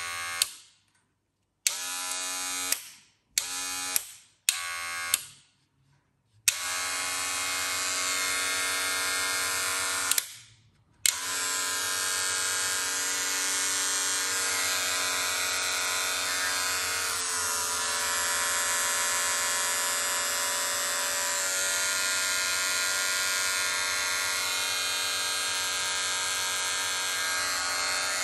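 Wahl Magic Clip cordless hair clippers switched on and off in four short bursts, then running with a steady electric buzz, cutting out briefly about ten seconds in before running on.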